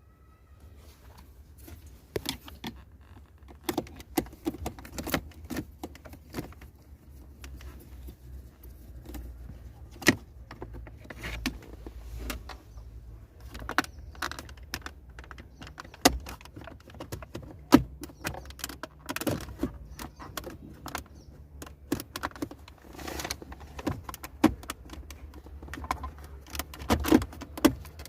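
Many irregular clicks and clinks of small hard objects being handled, over a steady low hum.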